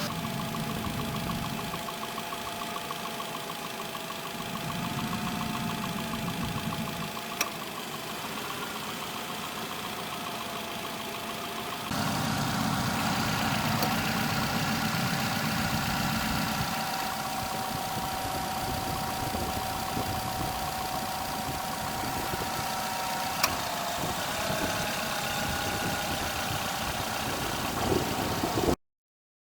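Car engine idling with the air-conditioning compressor running during a refrigerant recharge, a steady whine riding over the idle. There is a sharp click twice, and the sound cuts off abruptly just before the end.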